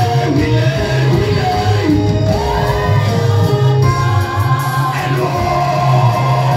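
Gospel music: voices singing over a steady bass line, with some shouting.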